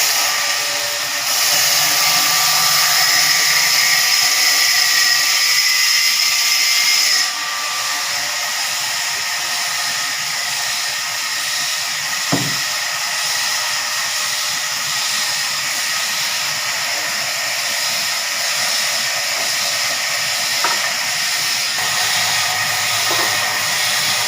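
Sawmill saw cutting through a log: a steady high-pitched whine over hissing noise. It is louder for about the first seven seconds, then eases off a little, with a single knock about twelve seconds in.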